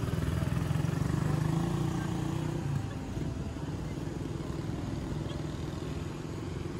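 Motorcycle engine running close by as it passes in the traffic lane, loudest over the first few seconds and dropping away after about three seconds, leaving a steady hum of city traffic.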